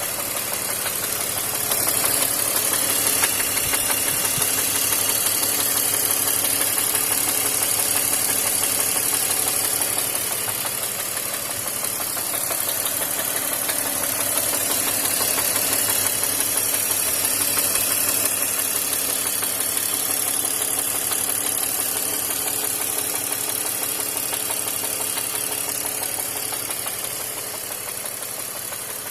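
BMW X5 E53's M54 straight-six petrol engine running steadily with a fast, continuous knocking, which the owner takes for a connecting rod knock.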